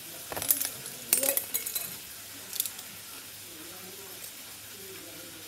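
Clicking and clinking of the plastic and metal parts of a Beyblade Burst Super Hyperion top as it is handled and fitted together by hand. A few quick clicks come about half a second in, then a denser rattle of clicks for about a second, then a single click a little later.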